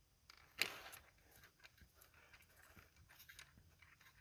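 Faint metallic clicks and a brief scrape about half a second in: the new knock sensor's 12 mm bolt being threaded in by hand on a VQ35DE engine.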